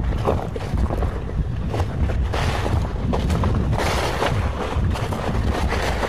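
Wind buffeting the microphone: a steady low rumble with a few louder gusts.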